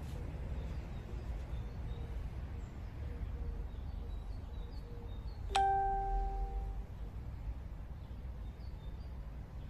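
A single chime rings out once about five and a half seconds in and fades over about a second, over a steady low background rumble.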